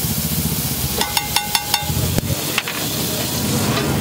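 A metal spatula rattles rapidly against the hot iron tawa about a second in: some six ringing metallic clacks in under a second, then two single knocks. Underneath are the sizzle of the griddle and a steady low rumble of traffic.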